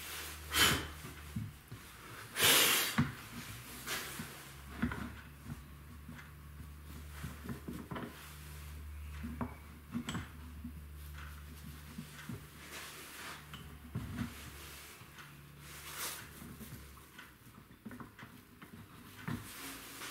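A wooden drill-press fence being shifted and clamped down: scattered knocks and clicks of wood and clamp knobs, with a louder rasping noise lasting about half a second near the start, over a low steady hum.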